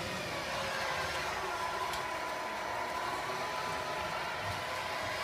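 Radio-controlled model Scania R470 truck driving, a steady running noise with a thin whine that comes in about two seconds in.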